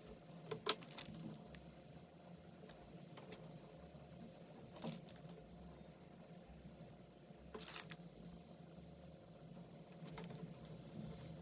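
Quiet handling sounds: a few soft taps and rustles as gloved hands set langue de chat cookies onto Nutella-covered pastries, over a faint steady hum.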